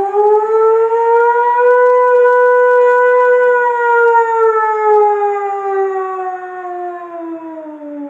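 A boy imitating an air raid siren with his voice: one long wail that climbs in the first second or so, holds steady, then slowly sinks in pitch over the last few seconds.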